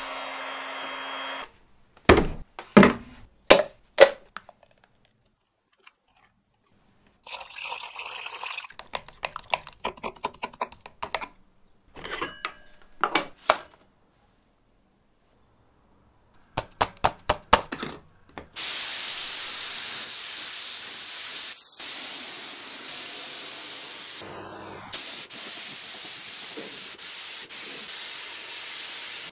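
Clatter and sharp knocks of equipment being handled, then from about 18 seconds in, an HVLP spray gun fed by an air hose spraying finish in a steady hiss, broken off briefly once near 24 seconds.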